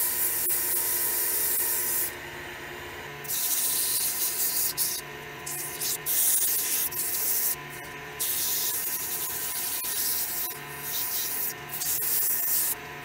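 Sandpaper held by hand hissing against a willow vase spinning on a wood lathe. The hiss breaks off for several short moments where the paper is lifted from the wood. A steady hum from the running lathe lies underneath.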